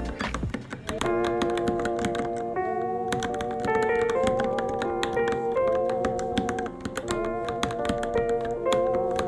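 Fast, uneven typing on a Varmilo Minilo mechanical keyboard: a dense run of key clicks over background music with a melody.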